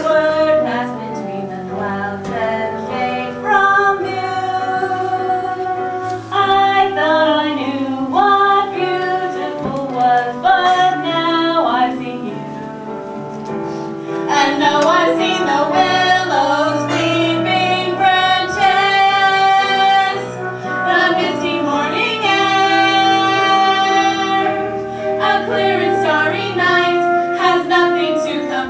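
A female voice singing a song from a stage musical, holding long notes, with instrumental accompaniment.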